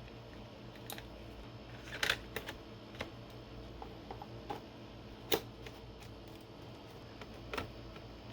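Scattered plastic clicks and knocks as AA batteries are fitted into the Swiffer WetJet spray mop's battery compartment and the mop is handled, about half a dozen sharp clicks with the loudest about two seconds and five seconds in.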